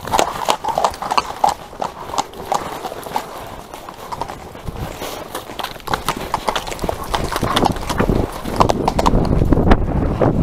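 Horses' shod hooves clip-clopping on a tarmac lane as several horses trot and canter, in quick, uneven strikes. Near the end a low rumble of wind on the microphone builds as the pace picks up.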